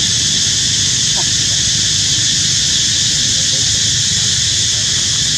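Steady high-pitched hiss of an insect chorus, with a low rumble underneath and a couple of faint short squeaks, one about a second in and one around the middle.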